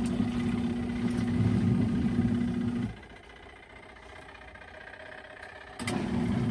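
Compact twin tub washing machine's wash motor running with a steady hum as it agitates the clothes. It stops abruptly about three seconds in and starts again about three seconds later: the pause a twin tub wash cycle makes between agitation turns.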